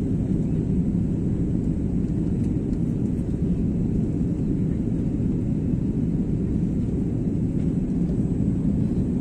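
Airliner jet engines and airflow heard from inside the cabin in flight: a steady low rumble.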